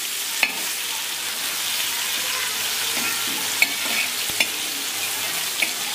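Rava-coated Bombay duck (bombil) shallow-frying in oil on a heavy iron tawa: a steady sizzle. A steel spatula knocks and scrapes against the pan a few times as the pieces are turned.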